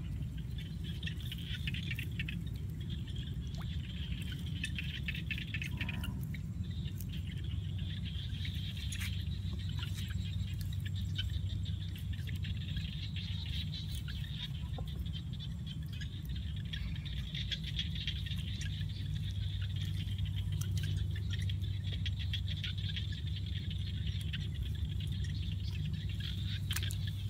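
A dense, steady chirring chorus of small field creatures, frogs and insects of a flooded rice paddy, with scattered sharp clicks. Wet rice stems and mud are handled close by, adding rustling and soft wet pats.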